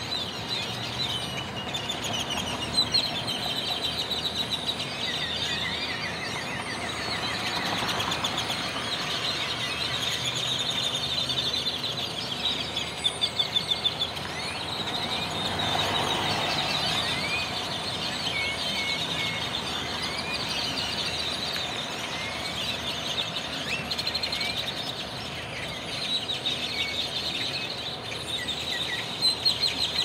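A large flock of blackbirds settling into a roost tree, hundreds of birds calling at once in a dense, continuous chatter of overlapping chirps and squeaky whistles.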